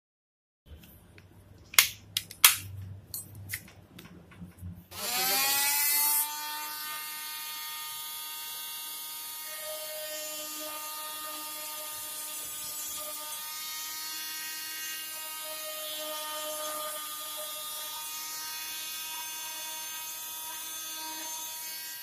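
Oscillating multi-tool with a round segment saw blade: a few sharp clicks and knocks as it is handled, then the motor starts about five seconds in with a quick rising whine. It runs loudest for about a second, then settles into a steady buzz as the blade cuts into a white plastic pipe, and winds down at the very end.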